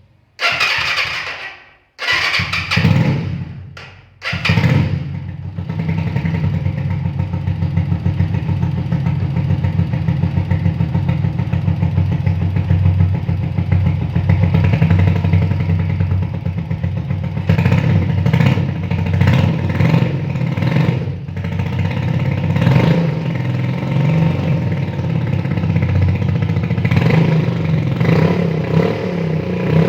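Motorcycle engine fitted with a homemade 'turbo' exhaust. It fires briefly and dies away a few times, then catches at about four seconds and runs steadily, with short throttle blips in the second half.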